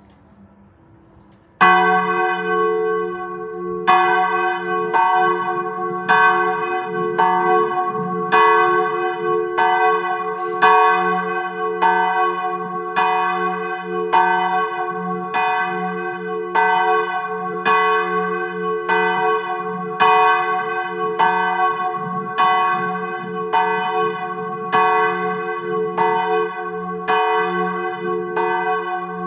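The largest bell of a four-bell church peal swung in full 'distesa' ringing, its clapper striking about once a second, each stroke ringing on under the next. It starts about a second and a half in, with a longer gap before the second stroke.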